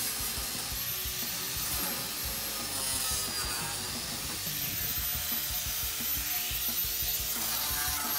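Electric drill with a sanding disc grinding rust off the steel side panel of a Mercedes Sprinter van: a steady high motor whine over the scrape of the disc on metal.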